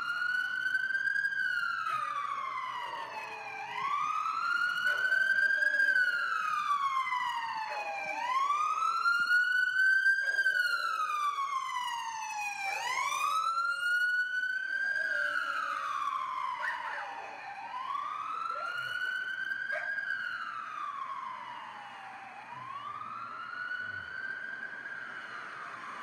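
Emergency vehicle siren on a slow wail, its pitch rising and falling about once every four seconds, growing fainter over the last several seconds.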